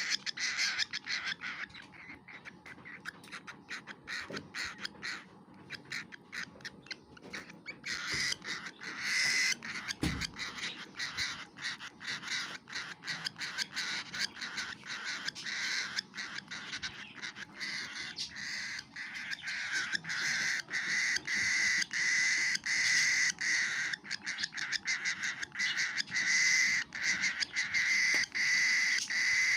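Baby cockatiel's food-begging calls while it feeds, a rapid run of short repeated calls several times a second. They go softer between about two and eight seconds in, then grow louder again.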